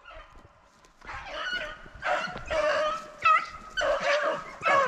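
Beagles baying as they run a rabbit, several voices overlapping, rising out of a brief lull about a second in.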